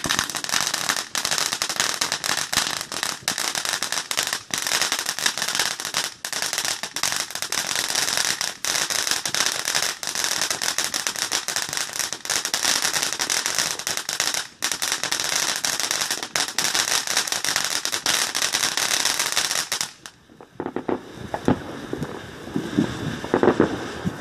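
Ground fountain firework spraying sparks: a steady, loud hiss packed with rapid crackles, which cuts off suddenly about twenty seconds in.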